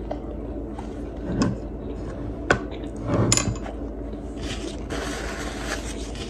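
Small sounds of eating at a table: a few light clicks and knocks, the sharpest about two and a half seconds in, and a soft scratchy rustle near the end, over a steady low hum.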